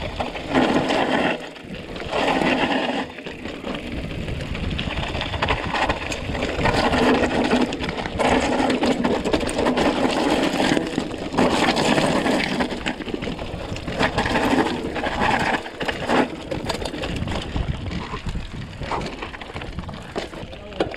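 Mountain bike riding over a rough trail: continuous rattling and tyre noise that swells and eases in irregular surges every second or two.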